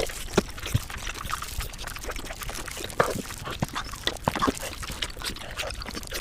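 Close-miked eating sounds sped up about five times: a rapid, dense run of wet chewing and mouth smacks, with short clicks throughout and a few louder smacks.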